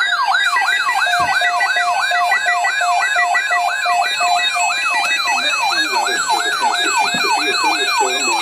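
Several electronic alert alarms sounding together, as from weather radio receivers set off by an alert. A falling siren-like sweep repeats about three times a second over a steady tone and a pulsed higher beep.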